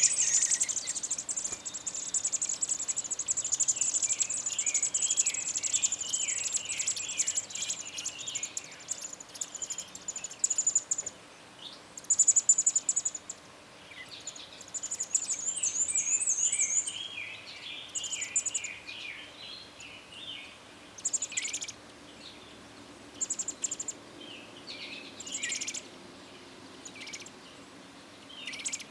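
American robin nestlings begging at the nest: a chorus of high, thin, wavering cheeps, continuous for roughly the first ten seconds and then in shorter bursts, the sign of chicks calling to be fed as the parent robin brings food.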